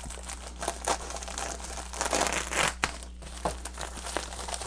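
Plastic bubble mailer being cut open and pulled apart by hand: its plastic crinkles and tears in irregular bursts, loudest about two seconds in.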